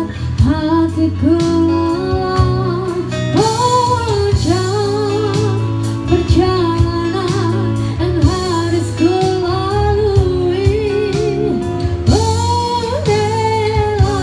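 A woman singing a melody into a microphone, backed by guitars, in a live band performance.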